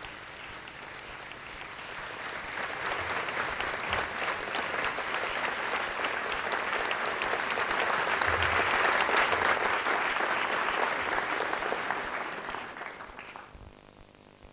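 Theatre audience applauding. The clapping builds over the first few seconds, is loudest a little past the middle, then dies away shortly before the end.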